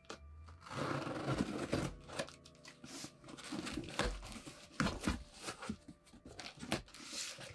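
Scissors slitting the packing tape on a cardboard box, with tape and cardboard tearing and crinkling in a string of short, sharp rips and rustles.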